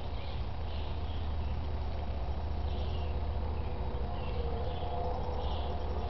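Woodland ambience: birds chirping with short high calls every second or so, and a few longer whistled notes, over a steady low rumble.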